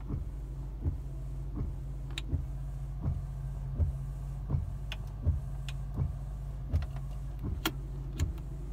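Windshield wipers running nonstop, knocking evenly about every three quarters of a second at each stroke, over the steady idle of the BMW 650i's twin-turbo V8. The wipers will not switch off, part of an electrical fault that also leaves the displays and power steering dead.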